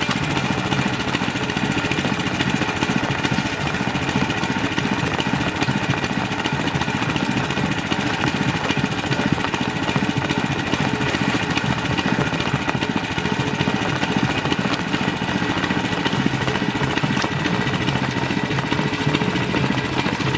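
Small engine driving a water pump, running steadily at a constant speed.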